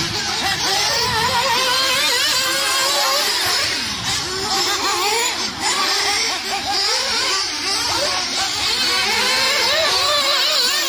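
Several RC racing buggies running on a dirt track, their small motors whining and changing pitch as they accelerate and brake through the corners, several at once.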